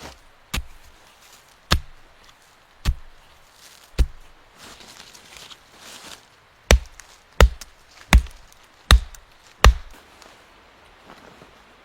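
Wood being chopped: nine sharp strikes. The first four come about a second apart; after a pause, five quicker ones follow, under a second apart.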